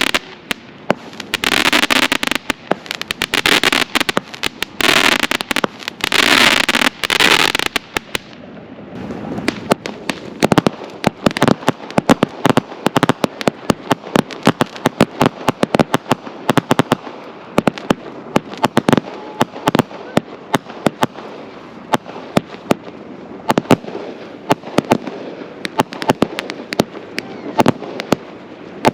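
Consumer firework cakes going off. For about the first eight seconds there are waves of dense crackle, then a long run of sharp, irregular pops and bangs.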